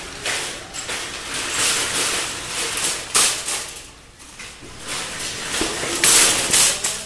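Metal wire shopping cart rattling and clanking as it is taken from a row of nested carts and pushed, with the loudest clanks about three seconds in and again near the end.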